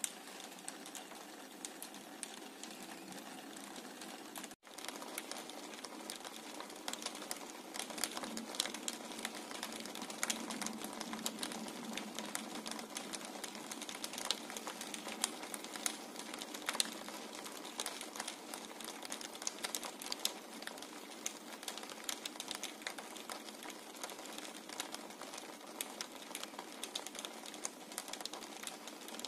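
Light rain, with raindrops tapping irregularly on a window pane over a steady hiss. The sound cuts out for an instant about four and a half seconds in, and the tapping is busier after that.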